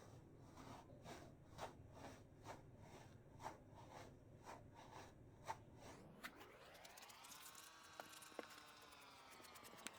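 Faint handling of a banana squishy toy: soft crackly squeezes about twice a second. About six seconds in, a faint pitched tone rises and then slowly falls.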